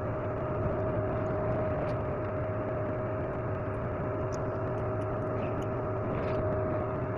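Steady whir of a small electric fan with a constant hum tone, unchanging throughout, with a few faint small clicks over it.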